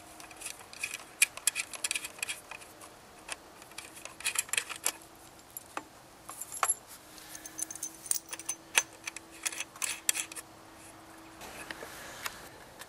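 Irregular metallic clicks, clinks and rattles of a short coax cable and its metal connectors being handled and coiled, over a faint steady hum.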